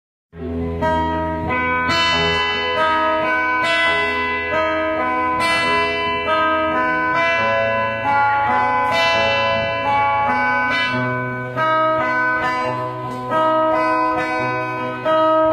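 Guitar playing a slow instrumental melody of plucked, ringing notes over bass notes, starting about half a second in.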